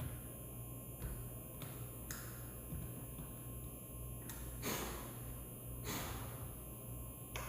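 A blade scraping and paring wood in short strokes, cleaning out the bottom of a shallow deadbolt recess cut into a door; about seven strokes, the two longest a little after the middle.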